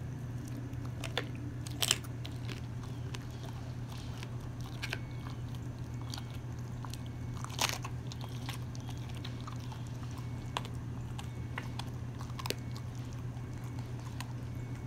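A dog chewing a raw chicken leg quarter: wet gnawing broken by scattered sharp crunches of bone, the loudest about two seconds in and again past the halfway mark, over a steady low hum.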